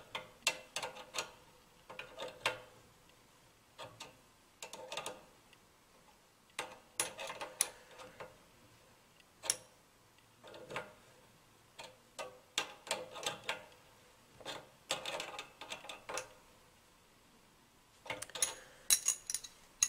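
Open-end wrenches clicking and clinking against brass compression fittings as the test pressure gauge's connections are tightened down: irregular clusters of light metallic ticks with short pauses between.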